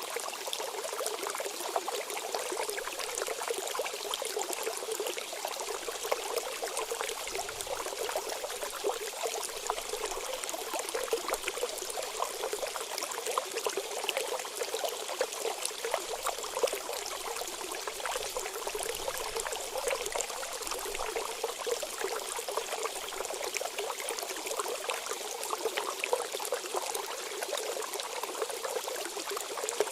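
Water trickling and splashing steadily: a continuous light rush of running water with fine droplet patter.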